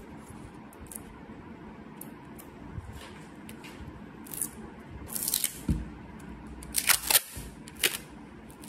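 Clear packing tape being pulled off its roll in several short, noisy rips in the second half, the loudest about seven seconds in, with faint handling clicks before them.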